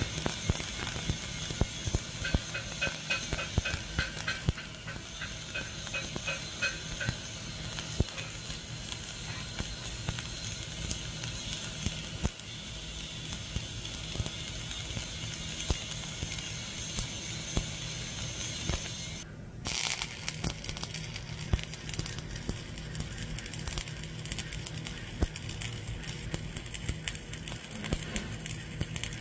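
Stick-welding arc of an E7016 3.2 mm electrode crackling and spitting steadily while laying the first pass of a vertical fillet weld. The crackle cuts out for a split second about two-thirds in, then picks up again.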